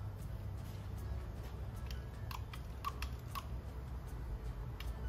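A handful of light metallic clicks and ticks, clearest in the middle, as a two-barrel Holley 2210 carburetor is handled and turned over in the hands, over a low steady hum.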